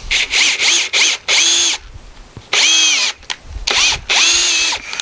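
Cordless drill run in bursts: a few quick blips, then several runs of about half a second. Its motor whine rises in pitch each time it spins up.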